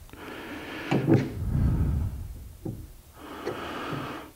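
Wood being knocked and rubbed as a wooden cabinet is handled, with the sharpest knock about a second in and a lighter click a little past halfway.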